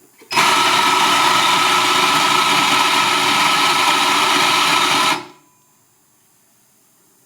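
Compak espresso grinder's motor running as it grinds an 18 g dose of espresso beans. It starts abruptly, runs steadily for about five seconds, then cuts off.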